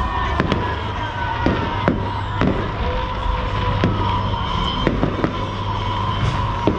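Fireworks display: shells bursting in about a dozen sharp, irregularly spaced bangs over a steady background din.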